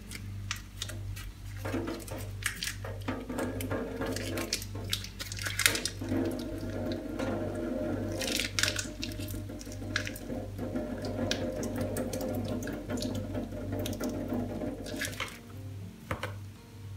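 Liquid squeezed from a block of tofu in its plastic pack, dripping and splashing into a stainless steel sink, with the plastic crinkling under the hands. Soft background music with a steady low pulse underneath.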